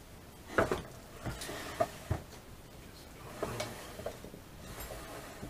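Rummaging among tools and hobby items on a workbench: a scattered series of knocks and light clatters, the loudest about half a second in.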